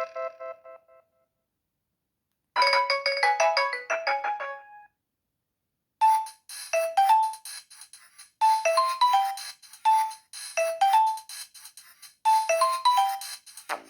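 Nokia 3120 ringtones played one after another on a Nokia 5130 XpressMusic phone's speaker, with short pauses between them. One tune ends at the start, a brief second melody plays about two and a half seconds in, and from about six seconds a third repeats a short phrase of a few notes roughly every two seconds.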